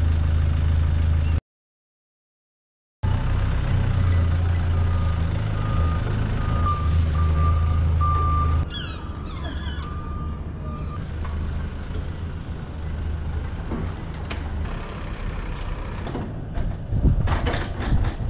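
A heavy vehicle's engine idling with a low steady hum, and a thin high steady tone over it. The sound cuts out completely for about a second and a half, shortly after the start. Near the end come sharp clicks and rattles as a ratchet strap is worked on the trailer side.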